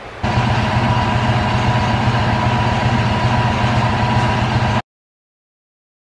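A machine running with a steady hum, starting abruptly and cutting off suddenly near the end.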